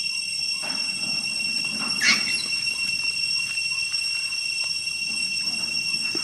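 Steady, high-pitched insect chorus droning without a break. A short squeak rises above it about two seconds in.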